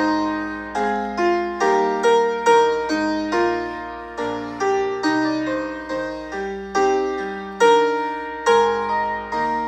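Piano playing a hymn tune in full chords, a new chord struck about once a second and each one dying away before the next.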